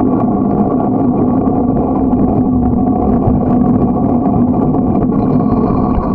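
Riding noise picked up by a camera mounted low on a moving bicycle: wind on the microphone and tyres rolling on asphalt, under a steady hum.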